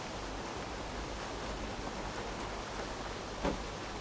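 Steady, even background hiss, with one brief soft sound about three and a half seconds in.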